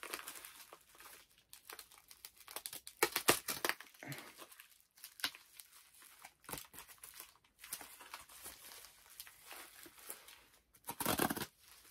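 Thick packaging around a mailed comic being unwrapped by hand: irregular crinkling and rustling with some tearing, with a louder stretch of rustling near the end.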